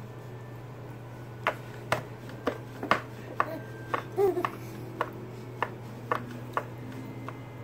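A run of sharp, short clicking smacks about two a second during spoon-feeding, with a brief baby's coo partway through, over a steady low hum.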